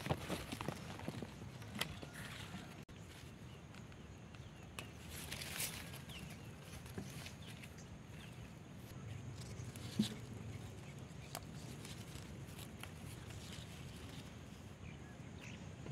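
Quiet rustling of tomato plants being handled, with a few short soft clicks scattered through, the sharpest about ten seconds in.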